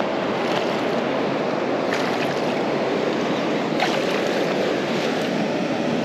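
Steady rushing of river rapids, with a couple of faint ticks.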